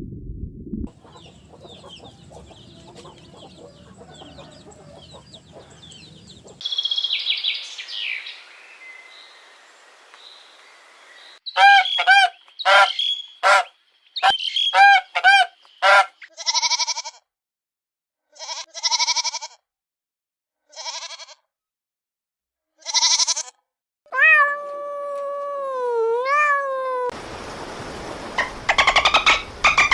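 A run of short animal-call recordings spliced one after another, birds and farm fowl among them. A burst of rapid repeated calls comes about halfway in, then separate calls about a second apart, then a long call that slides up and down in pitch.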